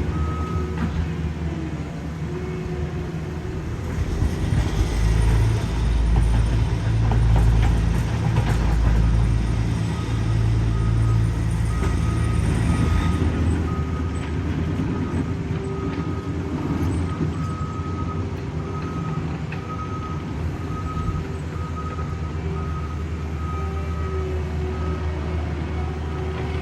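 Heavy diesel paving equipment running steadily, its engine rumble growing louder for several seconds near the middle, while a backup alarm beeps about once a second.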